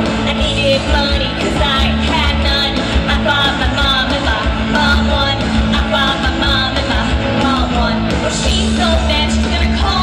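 Live rock band performing: a woman singing lead into a microphone over an electric bass guitar and band, loud and steady.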